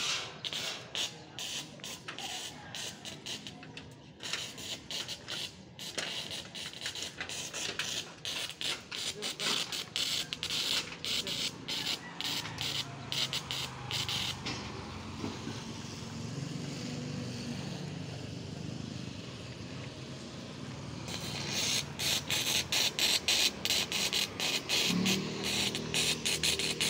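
Electric arc welding on steel truss members: a dense, irregular crackle and sputter from the arc, in two stretches with a pause of several seconds in the middle.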